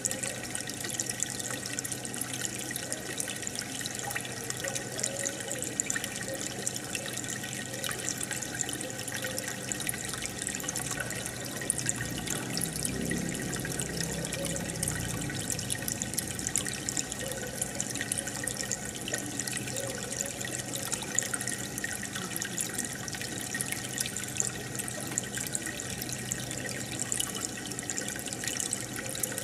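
Aquarium water bubbling and splashing steadily as air from the aerator rises to the surface, with a continuous low hum underneath.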